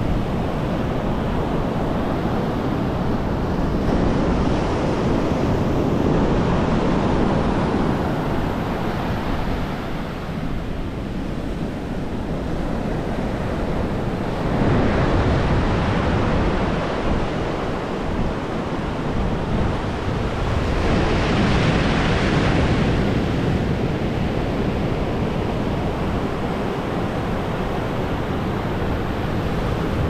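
Ocean surf breaking and washing up a sandy beach, a steady wash that swells three times as waves come in, with wind rumbling on the microphone.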